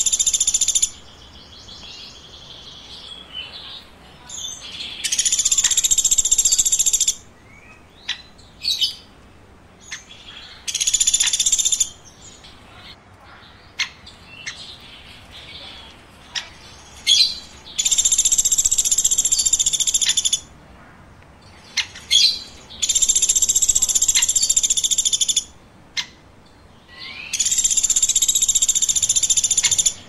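Woodpecker calling: dense, high-pitched chirping phrases, each one to two and a half seconds long, repeated every five to six seconds, with short sharp single notes in between.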